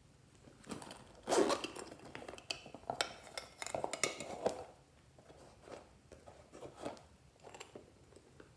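Handling noises from a soft plastic bear-shaped toy case being opened and rummaged in: a dense run of scrapes, rustles and small clicks over the first half, loudest about a second and a half in, then a few scattered taps.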